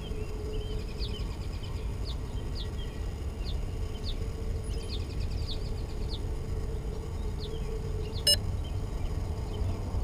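Outdoor ambience: small birds chirping in short high notes over a steady low rumble and a faint hum. A single short, sharp, pitched sound stands out about eight seconds in.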